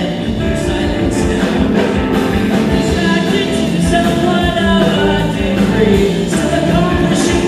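Live psychedelic rock band playing: a man singing over a hollow-body electric guitar and a drum kit.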